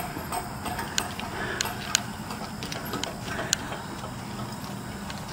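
A few sharp, scattered clicks and light knocks, about five over a few seconds, from handling and fitting the parts of a concrete picnic table, over a steady background hiss.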